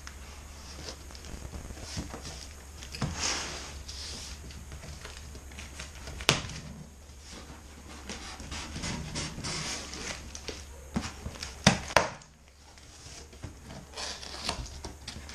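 Cardboard shipping box being opened by hand: packing tape cut and pulled, and the cardboard flaps scraped and pried open, with a few sharp cracks, one about six seconds in and two close together near twelve seconds. A steady low hum runs underneath.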